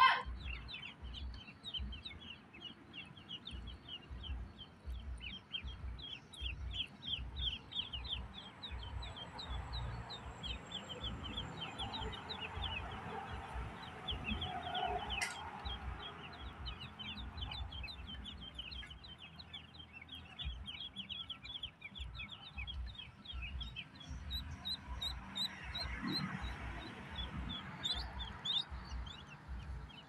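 Many ducklings peeping continuously, a dense chorus of short, high, downward-sliding peeps, with a sharp click right at the start.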